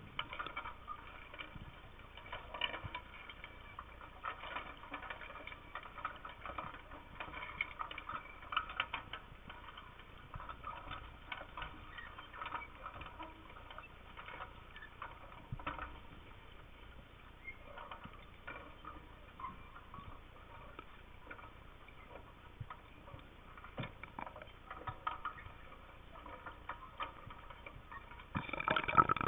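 Underwater ambience heard through an underwater camera's housing: a steady muffled hiss with irregular small clicks and crackles. A louder rush of noise comes near the end.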